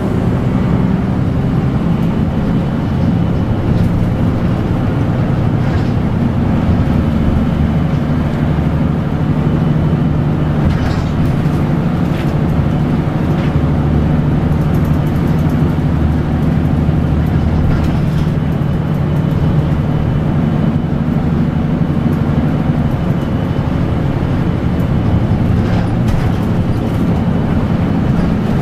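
Route bus driving along, heard from inside the cabin near the front: a steady low engine hum and road noise, with occasional faint clicks and rattles.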